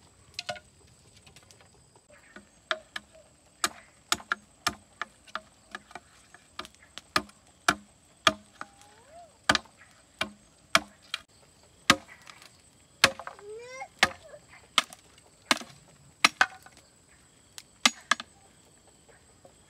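Steady chopping: a blade striking wood over and over, about two blows a second, some harder than others.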